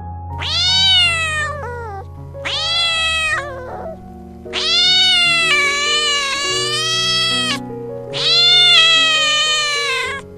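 Domestic cat meowing four times in long, drawn-out calls, the third lasting about three seconds, over steady background music.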